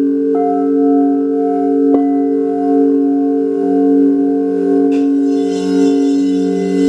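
Several singing bowls ringing together in long, slowly pulsing tones. One is struck about half a second in and another about two seconds in. A high, shimmering sound joins them about five seconds in.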